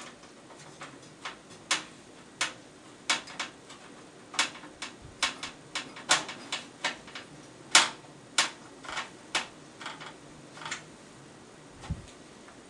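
Screwdriver and screws clicking and ticking against a metal PC case and its standoffs as a motherboard is screwed down: about twenty sharp, irregular clicks, one loudest about eight seconds in.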